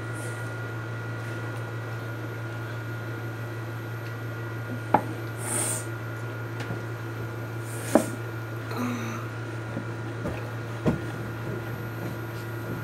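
A steady low hum with a faint high whine, broken by a few small clicks and knocks about five, eight and eleven seconds in.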